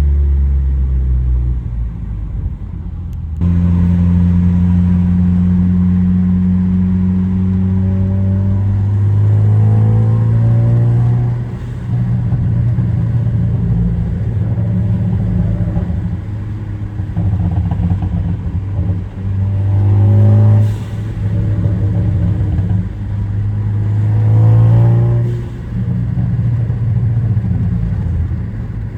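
2014 Ford Focus ST's turbocharged 2.0-litre four-cylinder engine, tuned for exhaust pops and crackles, heard from inside the moving car with a window partly down. Three times the engine note climbs in pitch under acceleration and drops off as the throttle lifts. A single sharp crack comes at one lift-off about two-thirds of the way in.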